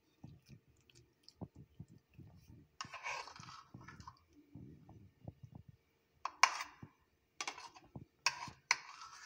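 Steel spoon spreading soft turnip curry filling over dough on a ceramic plate: soft dabbing thuds with a few scrapes and sharp clicks of the spoon against the plate, the clicks mostly in the second half.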